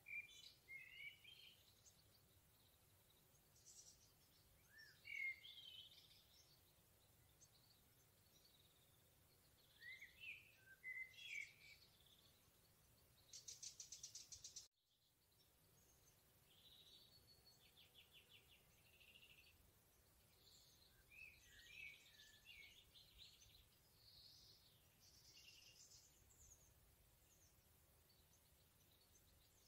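Songbirds singing in a forest: short phrases of quick rising and falling whistled notes, a rapid trill about halfway through, then a busier run of chirps and warbles. The sound drops out for a moment just after the trill.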